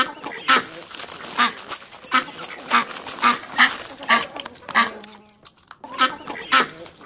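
Duck quacking: a string of short, loud quacks about one or two a second, with a pause of about a second near five seconds in.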